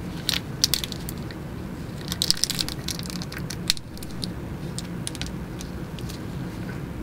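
Gloved hands handling a plastic syringe and its small cap: light plastic clicks and crinkles, a few in the first second and a denser run around two to three seconds in, then fainter ticks. A steady low hum lies underneath.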